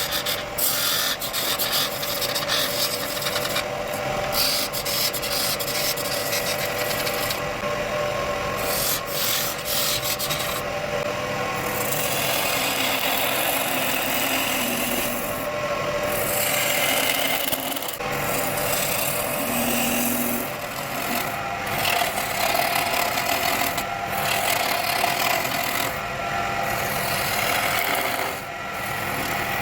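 Wood lathe spinning a wooden blank while a turning tool scrapes and cuts it: a continuous rasping hiss over the lathe's steady hum.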